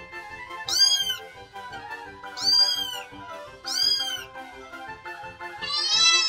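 Domestic cat meowing four times, each call rising then falling in pitch, the last one flatter and running on at the end, over background music with a steady beat.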